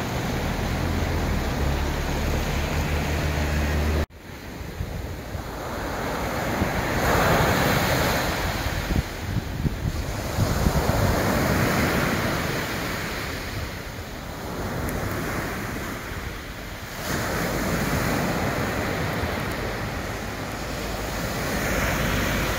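Wind rumbling on the microphone over the rush of the flooded river Jate pouring across the beach. About four seconds in this cuts off abruptly, and sea waves breaking on the beach take over, swelling and falling away every few seconds.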